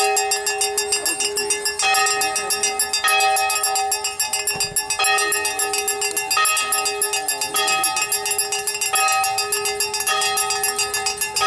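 Bells ringing continuously, many rapid strikes overlapping into a steady jangle, with a fuller ringing tone struck again about every second or so.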